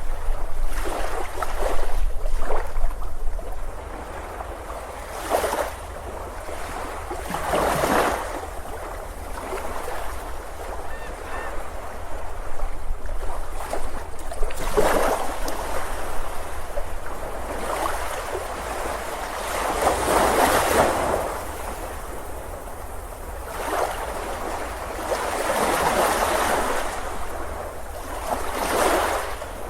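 Ocean surf on a beach: waves break and wash in, one swell every few seconds, over a steady low rumble.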